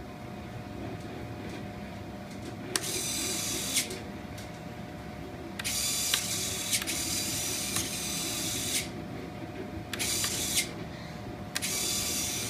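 Servos of switch-activated retractable drone landing gear whirring as the legs swing up and down, in four bursts, the longest about three seconds, with sharp clicks as some strokes start or stop.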